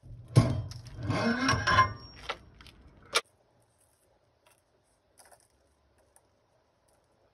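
Heavy truck wheel hub and brake rotor assembly being worked off the axle spindle: metal scraping and grinding with a brief squeal, ending in a sharp clank about three seconds in.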